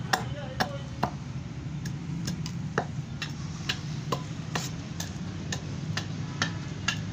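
A new 10 kg pneumatic forging hammer running without striking. A steady low hum comes from the machine, with a sharp tick about twice a second.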